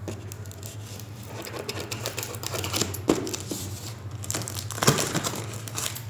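Packaging being handled and unwrapped, crinkling and tearing, with two sharper knocks partway through.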